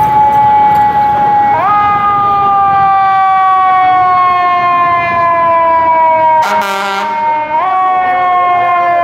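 Fire engine siren wailing, its pitch falling slowly and then jumping back up twice. A short air horn blast of about half a second comes about two-thirds of the way through.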